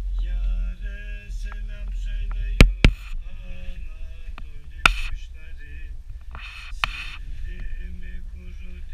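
A man singing a slow song in long held notes inside a closed gondola cabin, over a low steady rumble. A few sharp knocks cut in: two close together a little under three seconds in, and another about five seconds in.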